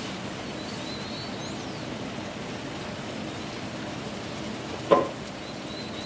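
Steady outdoor background hiss with faint, high chirps of small birds, about a second in and again near the end. One short, sharp sound about five seconds in is the loudest thing.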